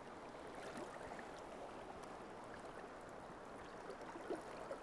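Steady, faint rush of river current riffling past, with a few faint small ticks near the end.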